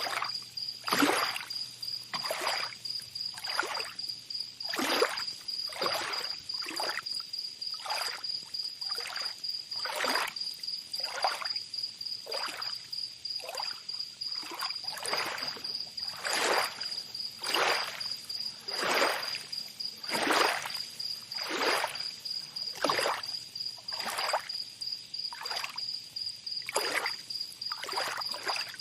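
Tropical beach ambience: water lapping and splashing in short swishes about once a second, over a steady high-pitched insect drone.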